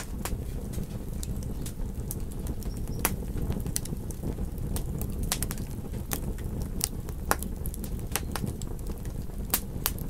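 Campfire crackling: irregular sharp pops and snaps of burning wood over a steady low rumble of the fire.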